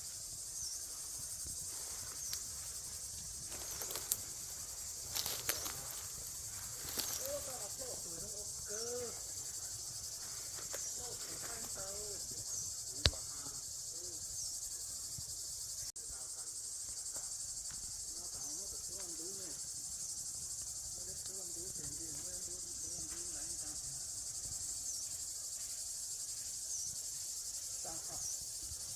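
Insects buzzing steadily at a high pitch, with a short chirp repeating about every two seconds. A few knocks come in the first few seconds, and a single sharp click about thirteen seconds in.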